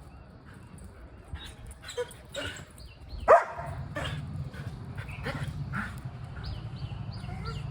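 Belgian Malinois giving several short barks and yips, the loudest a sharp one about three seconds in. A steady low hum comes in just after it.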